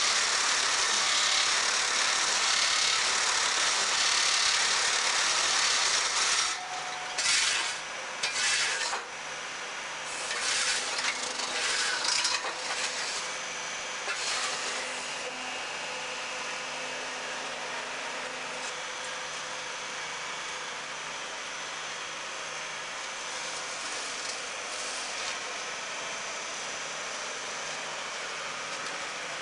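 HJM 6 MPP hydraulic paving-block press working through a cycle as the mould lifts off the pressed blocks. It starts with a loud, harsh rushing noise for about six seconds, then a few short loud bursts and rasping noises, and settles into a quieter, steady machine hum for the rest of the time.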